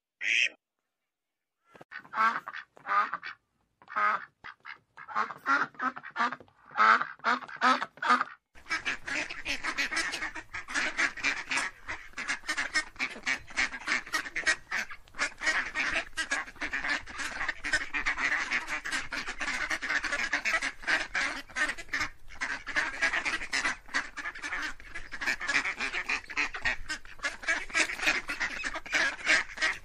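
A large flock of domestic ducks quacking. The quacks come one by one at first, then about eight seconds in they thicken into a dense, continuous chorus of many ducks calling at once.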